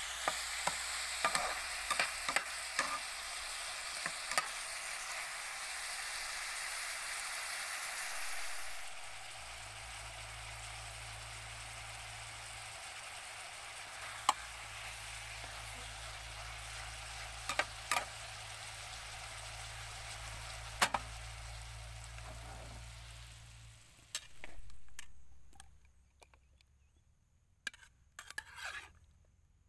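Shrimp and vegetables sizzling in hot oil in a frying pan while a metal spatula stirs them, scraping and knocking against the pan now and then. The sizzle fades out a few seconds before the end, leaving a few faint scrapes.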